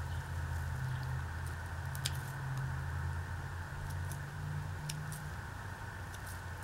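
Hand pruning shears snipping through ginger stems and roots, a few short sharp clicks, over a steady low hum.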